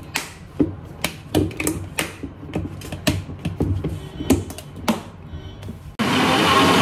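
Kitchen utensils being handled: irregular light knocks and clicks, two or three a second. About six seconds in, a loud, steady whirring motor noise cuts in suddenly.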